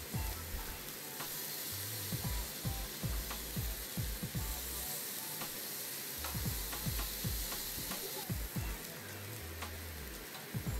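Beef steaks sizzling on a hot ribbed grill plate, a steady hiss with scattered light clicks and knocks.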